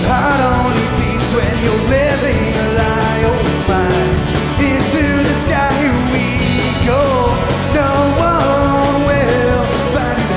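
Live bluegrass-style band playing: acoustic guitar, mandolin, electric bass and drum kit, with a man singing the lead vocal.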